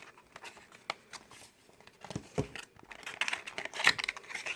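A plastic blind bag crinkling and being torn at by hand while it is opened, in scattered crackles and rustles that grow busier about two seconds in.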